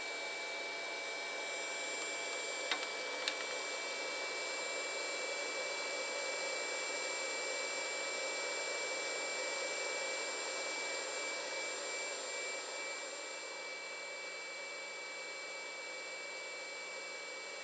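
Steady high electrical whine over a hiss from a powered-up 3D printer standing idle, with two small clicks about three seconds in. It turns a little quieter about two-thirds of the way through.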